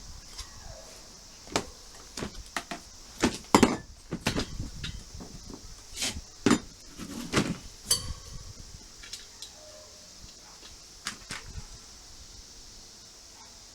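Irregular knocks and metallic clinks of tools and wheel parts being handled while a motorcycle tyre is fitted to its rim, busiest in the first half and trailing off with a few more near the end.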